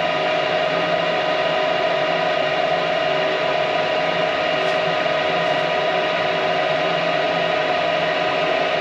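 Gas furnace running: a steady motor whir with a constant hum of several held tones, unchanging throughout.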